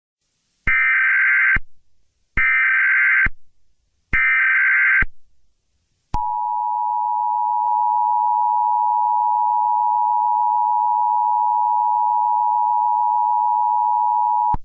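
Emergency Alert System alert: three short bursts of SAME header data, each about a second long, followed by the steady two-tone EAS attention signal held for about eight seconds.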